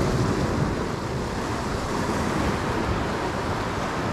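Ocean surf washing steadily on the shore, with wind rumbling on the microphone.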